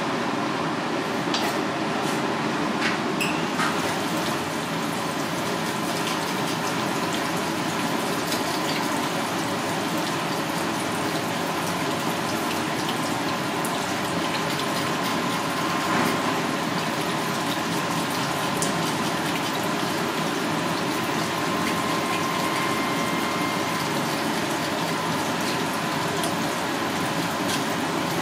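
Water running steadily from a spray-head faucet into a stainless steel sink, splashing over a fish fillet and knife being rinsed under it by hand. A few light clicks come in the first few seconds.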